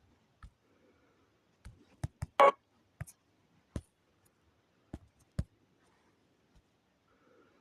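Irregular sharp clicks and taps, about ten of them at uneven spacing, with one louder short burst of noise about two and a half seconds in.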